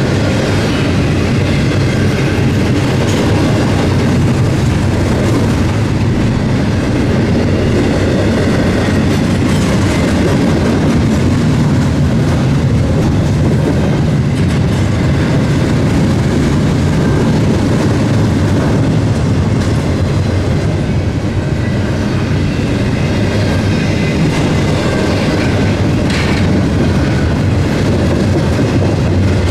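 Cars of a Norfolk Southern intermodal freight train rolling past: a loud, steady rumble and rattle of steel wheels on rail, with no let-up.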